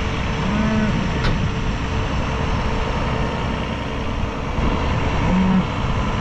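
Tractor engine running steadily under load, a dense low rumble with a faint constant whine. Two brief low-pitched calls sound over it, one near the start and one near the end.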